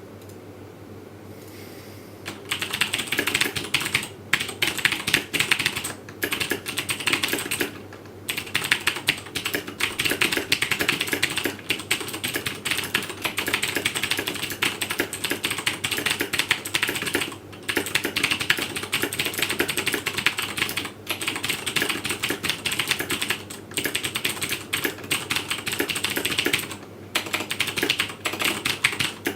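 Fast typing on a Razer BlackWidow Ultimate 2012 edition mechanical keyboard with Cherry MX Blue switches: loud, clicky keystrokes in dense runs, starting about two seconds in and broken by a few short pauses.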